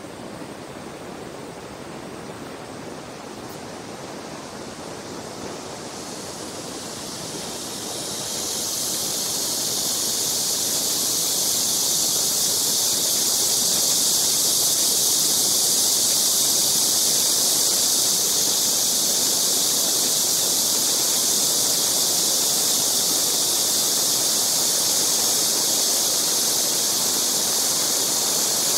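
A chorus of cicadas droning in one steady, high-pitched wash that swells up over the first several seconds and then holds, over a steady low background rush.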